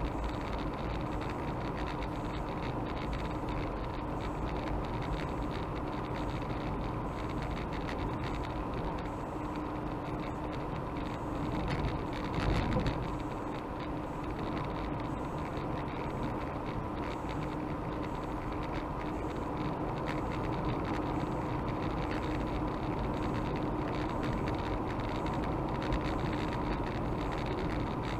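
Car driving along a sealed country road, heard from inside the cabin: steady tyre and engine noise with a faint steady hum, briefly louder about halfway through.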